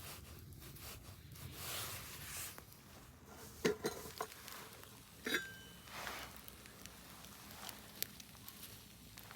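Rustling and handling noises with scattered light clicks and two sharp knocks, the second with a brief ring.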